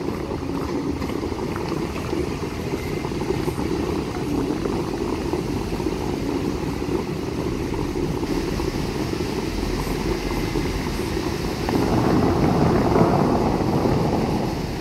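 Water jets of the Bellagio fountains rushing and splashing in a steady noise, swelling louder about twelve seconds in.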